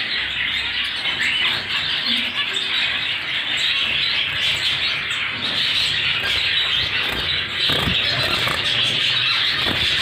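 A steady, dense chorus of many small cage birds chirping in an aviary, with some brief rustling of handling near the end.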